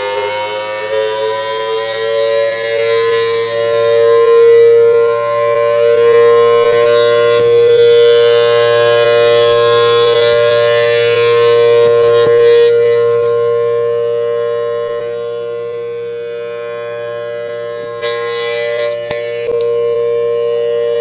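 Federal Signal Thunderbolt outdoor warning siren sounding its steady alert tone. The pitch finishes winding up in the first couple of seconds and then holds, while the loudness slowly swells and fades.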